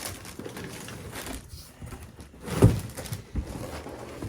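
Unboxing handling noise: packaging being moved and rustled, with a single heavy thump about two and a half seconds in.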